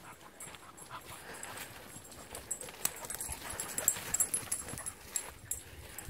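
Dogs trotting close by on a walk, panting, with a run of sharp high clicks that comes thickest about three to four and a half seconds in.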